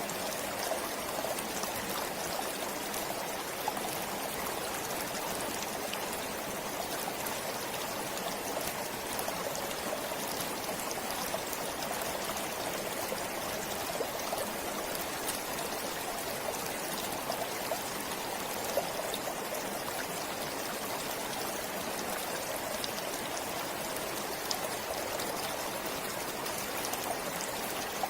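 Forest stream flowing steadily, water trickling and splashing with small droplet ticks over a constant rush.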